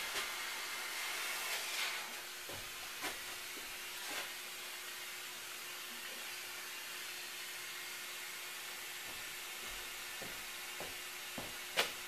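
Steady hiss of steam venting from the overheating engine bay of a turbocharged Nissan GA16 engine, a little louder for the first two seconds. A few faint knocks sound over it.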